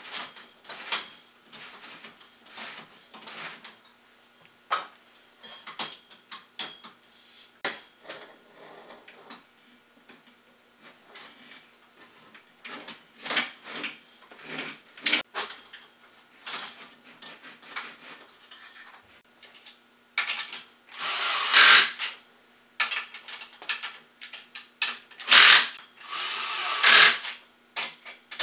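Ryobi cordless drill driving fasteners into the frame in three short runs in the last third, the first the longest. Before that come scattered light clicks and knocks of parts being handled and fitted.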